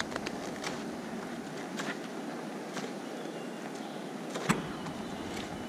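A knife whittling a green wood stake: a few short, sharp scraping strokes, the loudest about four and a half seconds in, over a steady low background hiss.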